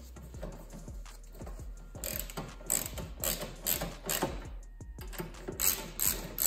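Socket ratchet clicking as it runs in and tightens a 10 mm bolt. It goes faintly at first, then in loud back-and-forth strokes about two a second, with a brief pause a little past the middle.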